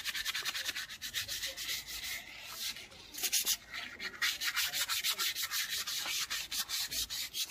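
A bullock's horn being scraped clean by hand: quick, rhythmic rasping strokes, about five or six a second, with a brief pause about three seconds in.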